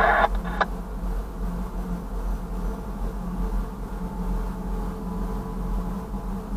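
Diesel locomotive engine idling with a steady hum, heard from inside the cab. A two-way radio transmission ends about half a second in.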